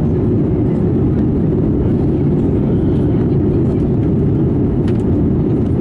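Airbus A320 cabin noise heard from a window seat over the wing on approach: a steady, low rush of engines and airflow.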